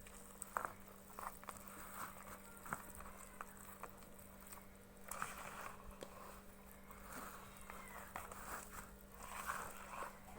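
Spoon stirring rakik batter in a bowl: faint soft scraping with scattered light clicks of the spoon against the bowl, over a steady low hum.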